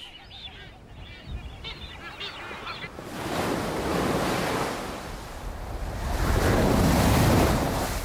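Seabird calls, a quick series of short notes, then surf breaking along a rocky shore in two rushing surges, the second one louder.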